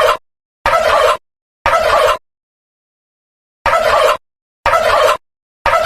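Turkey gobble sound effect cut into half-second bursts and played in the code-3 temporal fire alarm pattern: groups of three gobbles about a second apart, with dead silence between them and a pause of about a second and a half between groups.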